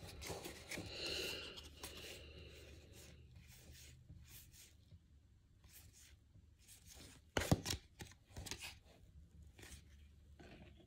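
2024 Topps baseball cards sliding and rubbing against each other as they are flipped through one by one. About seven and a half seconds in there is a louder clatter as a stack of cards is set down on the table.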